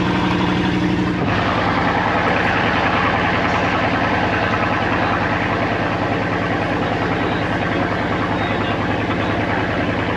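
The engine of a Laotian river slow boat running steadily, heard from on board. About a second in, the sound changes abruptly to a brighter, noisier mix.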